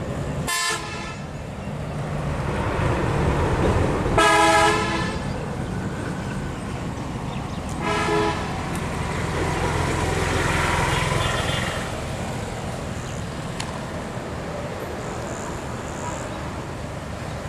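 A vehicle horn sounds three short toots, about half a second in, near four seconds and near eight seconds, the middle one loudest, over a steady low traffic rumble.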